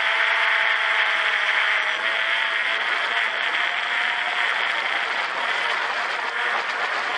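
Quadcopter drone's propellers and motors buzzing steadily in flight, heard from the camera mounted on the drone itself, with a droning hum whose pitch wavers slightly.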